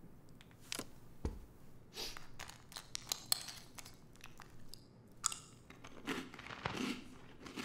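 Someone eating crunchy food from a bowl with a spoon: the spoon clicking against the bowl and irregular crunches of chewing.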